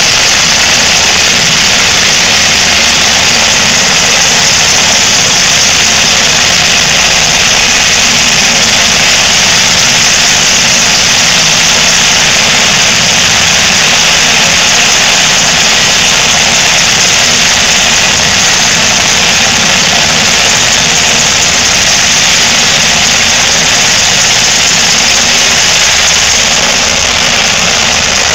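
UH-60 Black Hawk helicopter running on the ground with its turbines and rotor turning: a loud, steady rushing whine close by, easing slightly near the end.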